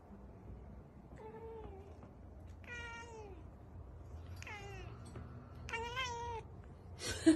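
Tabby cat meowing four times, long drawn-out meows that fall in pitch, the last one wavering. A louder, harsher sound cuts in right at the end.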